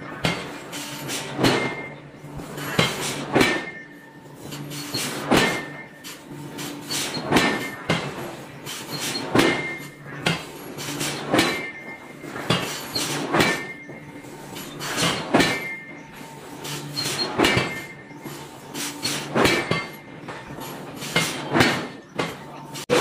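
Heavy forging ram driving a bowl-shaped punch down into a steel billet, with a heavy blow about every two seconds, each preceded by a lighter knock and followed by a short metallic ring. A steady low machine hum runs underneath.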